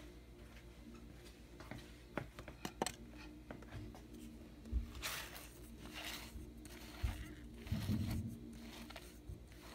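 Kitchen items being handled and set down on a counter: scattered clicks and knocks, a few scraping, rustling sounds about five to six and a half seconds in, and dull thumps near the end.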